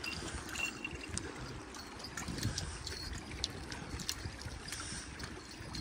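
Small waves lapping faintly against the shore rocks, a low steady wash with scattered light clicks.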